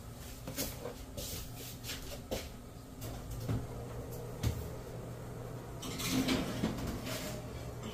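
Aluminium sheet pans of cookie dough being lifted off a counter and handled: scattered light knocks and clicks over a steady low hum.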